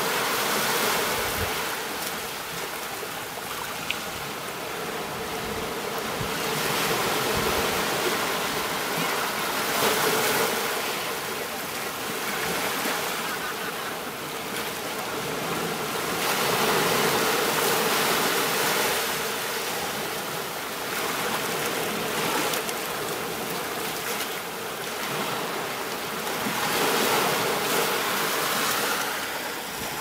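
Ocean surf washing up a beach, swelling and fading every several seconds.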